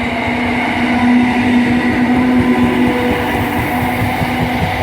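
Class 319 electric multiple unit passing close by as it pulls away and gains speed. Its traction motors give a steady hum with a fainter high whine over the rumble of the wheels, loudest about a second in.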